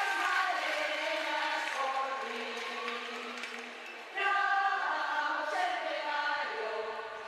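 Music of layered wordless voices singing sustained chords. The chord fades, then a louder new chord enters suddenly about four seconds in.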